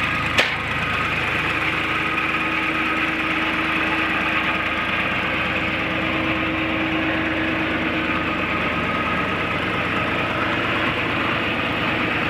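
Three-cylinder diesel engine of a John Deere 240 skid steer running steadily, with a sharp click about half a second in and a steady whine for several seconds in the middle.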